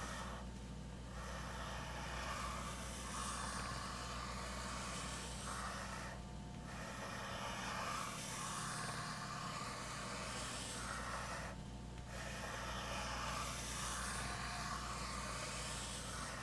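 Pencil scratching on sketchbook paper as circles are drawn round and round in long strokes. It stops briefly three times: about half a second in, about six seconds in, and near twelve seconds in.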